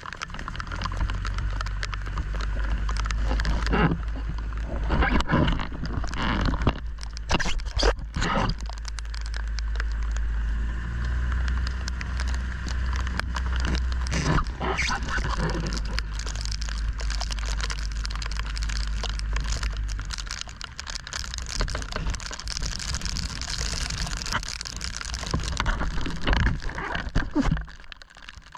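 A steady low rumble on a small dive boat's open deck in wind and rain, with scattered knocks and clatter of gear. The rumble eases about two-thirds of the way through.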